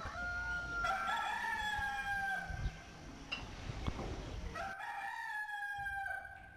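A rooster crowing twice, two long drawn-out crows, the second starting about four and a half seconds in.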